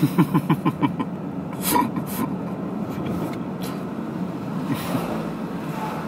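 Steady road and engine noise inside a moving car's cabin, with a brief swell of noise near the end as an oncoming car passes.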